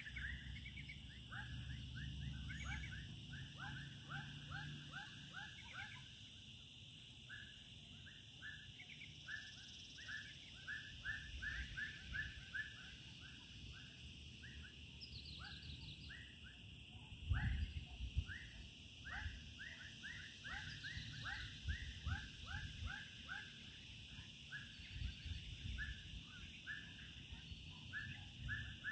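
Animals calling at dusk: a long run of short chirping notes, repeated a few times a second, over a steady high hum. A brief low thump about two-thirds of the way in is the loudest sound.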